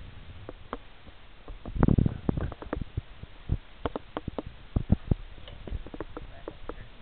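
Irregular taps and clicks, a few a second, with a heavier low knock about two seconds in.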